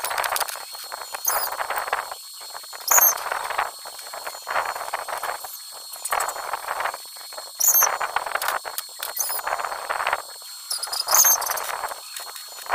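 Stick-welding arc crackling in short runs of a second or two, several times over, as bent steel pipe pieces are tack welded. A faint steady high tone sits underneath, and a brief high chirp comes now and then.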